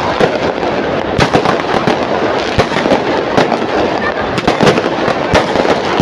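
Aerial fireworks going off in a rapid, irregular string of bangs and crackles, over the steady noise of a large crowd's voices.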